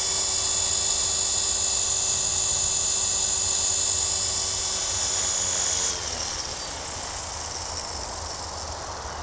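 Sonix SX 450 SE radio-controlled helicopter whining steadily. About six seconds in, the whine drops in pitch and fades out, leaving a steady hiss.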